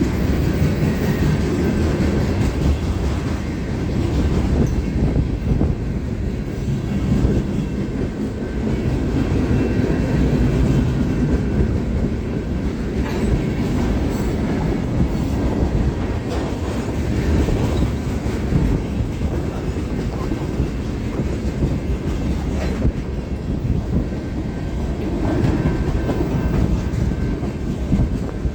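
Freight cars of a long mixed freight train rolling past, a steady rumble of wheels on rail.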